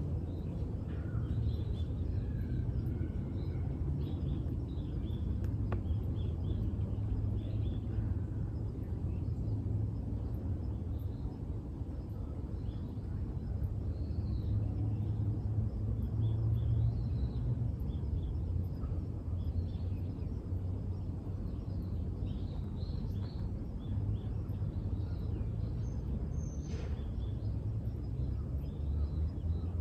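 Birds chirping here and there over a steady low outdoor rumble, with one clearer high call sweeping down near the end.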